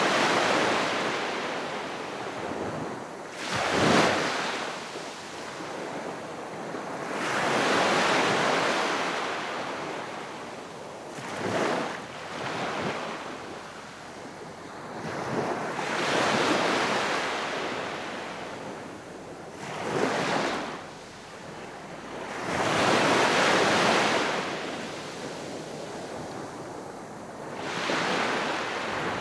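Gentle sea waves breaking and washing up the shore, one about every four seconds, some with a short sharp break and others a longer swelling wash.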